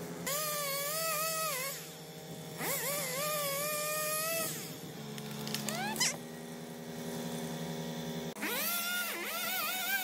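Riding lawn tractor engine idling steadily. Over it come long high squeals that swoop up, hold with a slight wobble and then fall away: three drawn-out ones and a short rising one about six seconds in.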